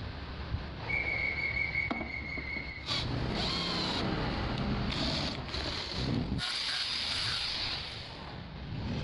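Cordless drill boring a hole through a flat steel bar. A steady high whine sounds from about a second in, then a rougher cutting sound from about three seconds, broken by sudden cuts between short clips.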